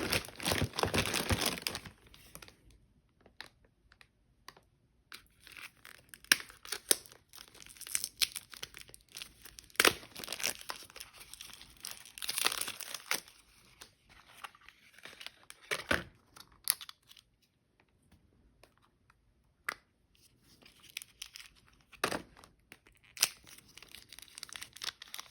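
Plastic toy packaging of a Shopkins surprise toy being torn open and crinkled by hand, in irregular spells with short pauses between them and a few sharp snaps.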